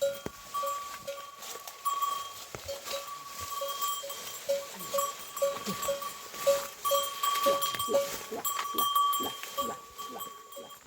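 Goats bleating, with a steady pulsing chirp of about two notes a second behind them and scattered clicks.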